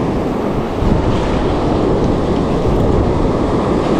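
Wind buffeting the microphone over surf washing onto the beach: a loud, steady rush.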